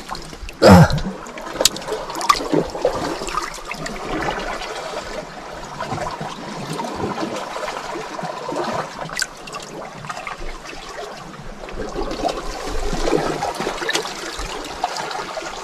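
Water splashing and trickling, with scattered light knocks and one brief loud burst about a second in.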